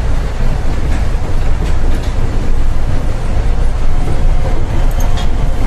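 Seibu 8500 series 'Leo Liner' rubber-tyred guideway train running along its concrete track, heard from inside the car: a loud, steady rumble of tyres and running gear with a few light clicks, and a faint steady whine that comes in about four seconds in.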